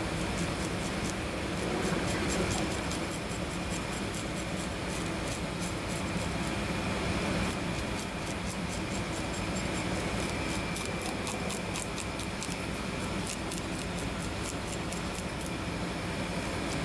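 Kitchen knife scraping the scales off a marbled rockfish on a cutting board: a long run of short scraping strokes, a few a second, with a brief pause about halfway. A steady low hum runs under it.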